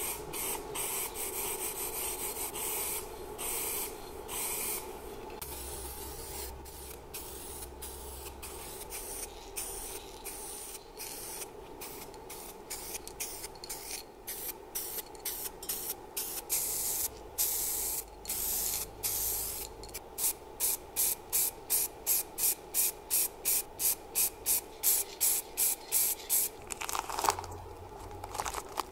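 Aerosol spray can of paint spraying alternator parts: longer sprays at first, then rapid short bursts, about three a second, in the second half.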